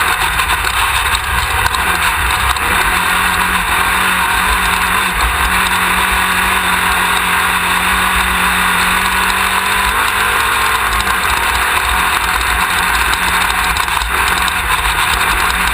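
Class 1600 desert race buggy's engine running hard at speed, picked up by a camera mounted on the car, under a loud, constant rush of wind and road noise.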